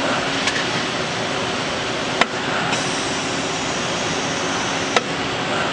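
PCB auto insertion machine running: a steady mechanical hiss and hum, with three sharp clicks about half a second, two seconds and five seconds in.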